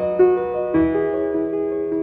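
Intro music led by a piano-like keyboard, held notes shifting every half second or so over a low bass note.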